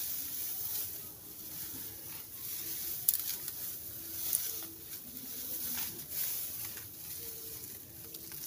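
Dry grass crackling and rustling as it is handled and spread by hand as mulch around plants, with a couple of sharper clicks about three and four seconds in.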